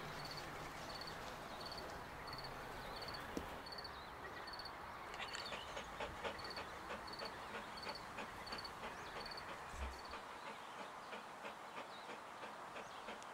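Insects chirping in a summer pasture: a steady high chirp repeating about twice a second, joined about five seconds in by a faster ticking of three or four clicks a second.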